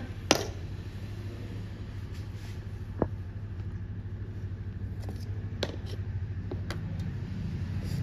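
Steady low room hum with a handful of sharp, brief clicks, the loudest just after the start and the rest spread through the middle.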